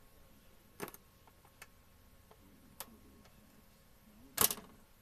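A few scattered sharp clicks: one about a second in, two faint ticks after it, and a louder double click near the end.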